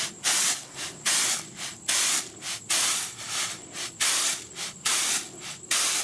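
Threshed rice being winnowed with a large round woven bamboo tray: a rhythmic swish of grain and air about once a second, some seven strokes in a row.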